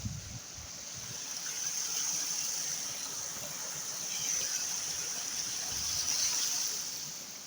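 Water running and trickling steadily, a continuous hiss that swells and eases slightly.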